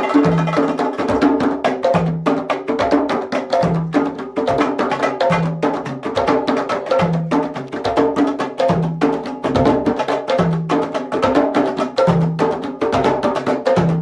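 A group of hand drums played live in a steady, repeating rhythm: quick strokes run throughout, with a deep bass stroke recurring about every second and a half.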